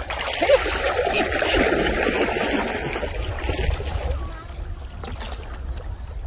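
Water splashing and trickling around a plastic bucket handled at the surface of a river. The water noise is loudest for the first four seconds or so, then dies down.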